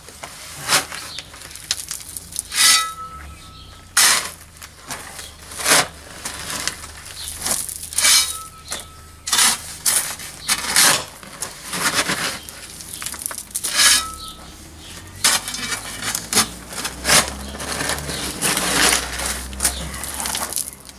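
Pickaxe and spade digging into gravelly, stony ground: irregular sharp metal-on-stone strikes about every second or two, some leaving a brief metallic ring, with gravel scraping and crunching between them.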